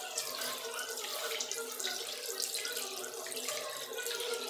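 Tap water running into a sink, with splashing as someone rinses their face with their hands.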